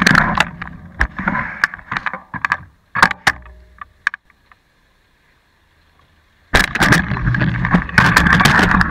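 Sharp knocks and clatter of the camera being bumped and handled, a short near-silent pause, then a stretch of loud rough noise on the microphone.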